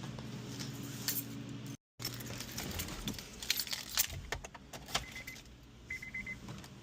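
Car keys jangling with light clicks at the ignition of a 2003 Honda Civic Hybrid, after a steady low hum cuts off about two seconds in. Near the end a dashboard warning chime beeps twice.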